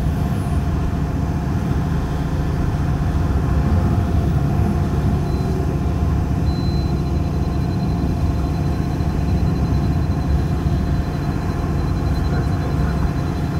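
Heavy diesel machinery at a demolition site running steadily, a low engine rumble, with a thin high whine coming in about halfway.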